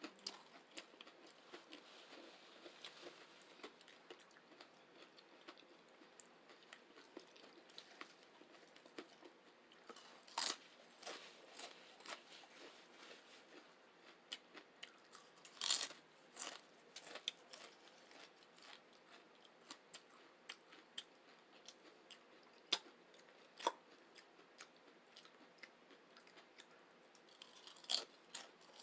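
People chewing crunchy chips topped with chili and beans, mostly soft chewing with a few sharp crunches, the loudest about sixteen seconds in.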